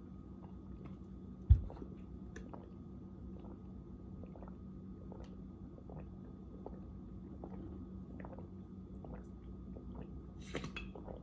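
A person chewing food close to the microphone: soft, regular mouth sounds about once or twice a second, with one sharp thump about a second and a half in and a brief clatter near the end.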